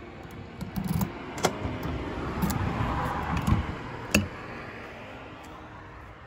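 A door key going into a deadbolt lock cylinder and turning, a series of sharp metallic clicks and clacks, the last one about four seconds in as the key is pulled out. A swell of steady noise runs under the clicks in the middle.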